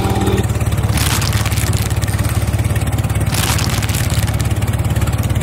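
A low, fast-pulsing engine rumble for the toy tractor, running steadily, with brief rushes of noise about a second in and again past three seconds.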